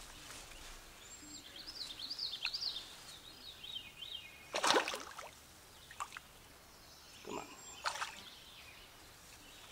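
A songbird warbling for the first few seconds, then a few short sharp splashes from a hooked brown trout thrashing at the surface, the loudest about five seconds in.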